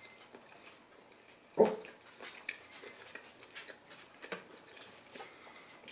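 Close-miked eating sounds: a fork clicking and scraping on a plate while food is picked up and chewed, with small sharp ticks coming thick and fast. About a second and a half in there is one short, louder voiced sound.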